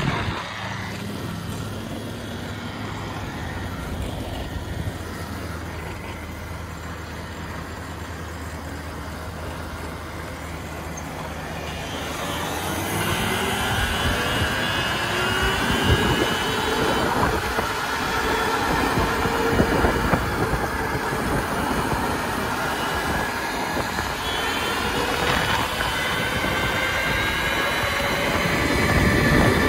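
A moving road vehicle: a steady low hum at first, then from about twelve seconds in, several rising whines over wind and tyre noise as it speeds up, and another rise near the end.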